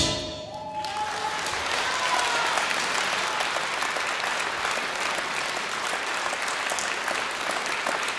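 Audience applauding in a concert hall, the clapping filling in within the first second as the orchestra's final chord dies away, then going on steadily.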